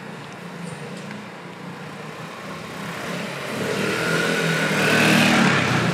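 A road vehicle passing close by in street traffic: its noise swells over a few seconds, is loudest near the end, then begins to fade.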